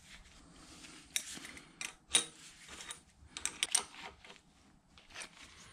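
A steel wrench working the nuts on a Bridgeport mill's cast-iron turret: a scattered run of sharp metal clicks and clinks, bunched between about one and four seconds in, with one more near the end.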